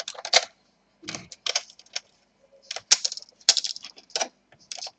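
Irregular clicks, taps and short scrapes of a tool and fingers on a laptop's plastic chassis and metal keyboard plate as the Wi-Fi antenna cables are pulled free.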